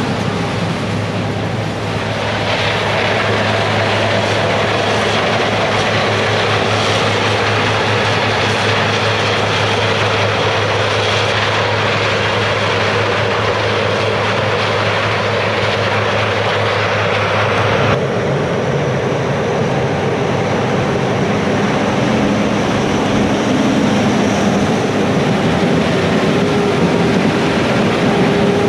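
Heavy diesel harvest machinery running steadily under load: a low engine drone with a dense mechanical rush over it. The sound changes abruptly about eighteen seconds in.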